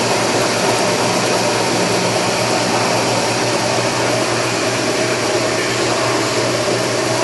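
Leblond Regal toolroom lathe running with a steady whirring hum, a low steady drone under it, as the carriage crawls along the ways.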